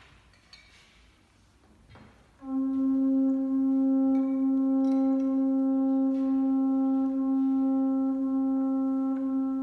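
Russian horn band, straight conical horns that each sound one pitch, holding a single steady note that comes in suddenly about two and a half seconds in, after a near-quiet start with a few faint knocks.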